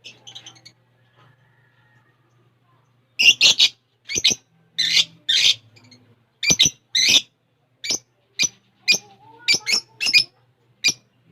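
Lovebirds giving a rapid series of short, shrill calls, starting about three seconds in.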